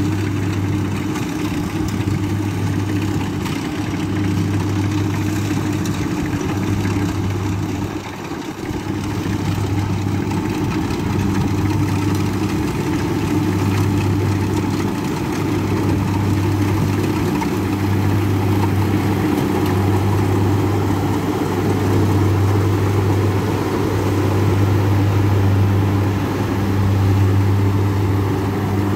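Kubota rice combine harvester's diesel engine and threshing drive running under load while cutting rice, a steady low drone that swells and eases every couple of seconds, with a short dip about eight seconds in.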